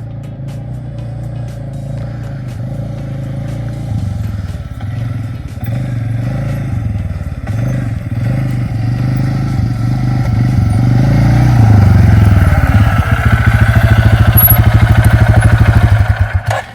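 Four-wheeler (ATV) engine running under way across rough ground, its pitch rising and falling as the throttle changes. It grows louder and is loudest with a rapid even pulsing in the last few seconds, then cuts off suddenly near the end.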